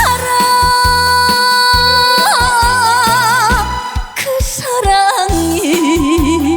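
Instrumental break of a trot song: a lead melody holds long notes that swell into vibrato over a steady beat and bass.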